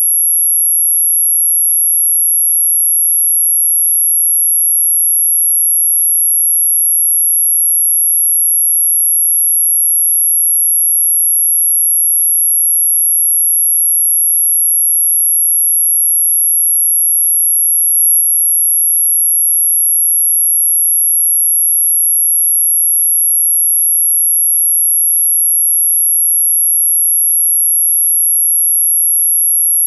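Anti-mosquito repellent tone: a single pure, very high-pitched tone held steady and unbroken.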